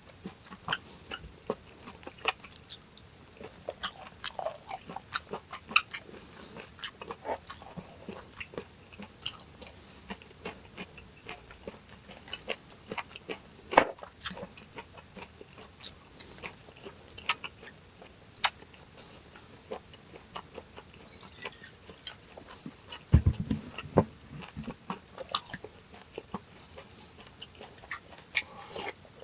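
Close-miked eating: chewing of hongeo samhap (fermented skate, boiled pork and kimchi) with many small wet mouth clicks, and a brief cluster of dull knocks about three-quarters of the way through.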